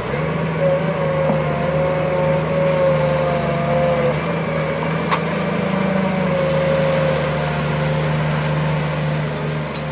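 Sumitomo hydraulic excavator's diesel engine running steadily under work, with a higher whine that wavers in pitch over the hum. A single sharp click about five seconds in.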